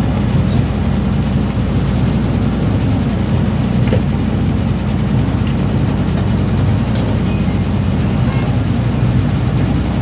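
City bus engine idling steadily at a stop: a continuous low rumble.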